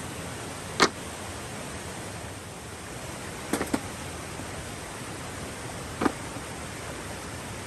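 Steady rushing background noise, broken by four short, sharp clicks: one about a second in, a quick pair a little past three and a half seconds, and another near six seconds.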